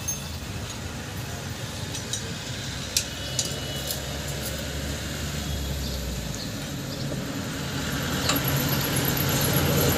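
A few sharp metal clinks of hand tools on a motorcycle engine being worked on, spaced seconds apart, over a steady low rumble of road traffic that grows louder near the end.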